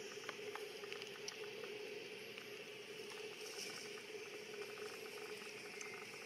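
Faint small clicks and smacks of macaques chewing mango, over a steady background hum.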